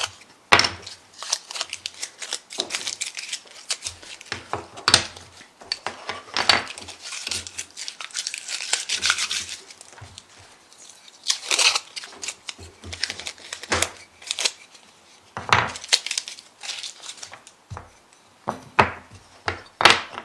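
Painter's tape being peeled and torn off cut strips of wood in a series of irregular rasping rips, with the tape crinkling and occasional sharp knocks as the wooden pieces are handled.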